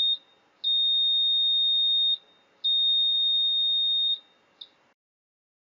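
Siemens Sinteso fire alarm panel's fault buzzer sounding a steady high-pitched tone in pulses of about a second and a half with half-second gaps, signalling an incoming fault. It stops after the third pulse and is followed by a short click.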